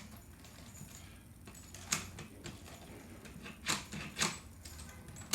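About five sharp metallic clicks at irregular intervals from a commercial lever handle lockset being handled and turned by hand during reassembly after rekeying.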